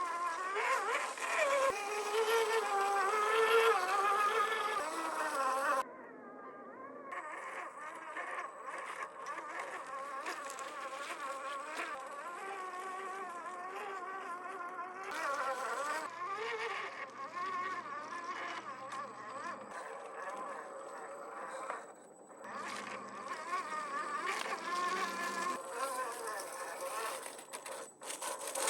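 Electric whine of a 1/10 scale RC crawler's 540 brushed motor and single-speed geared transmission, its pitch rising and falling with the throttle. The whine drops off briefly twice.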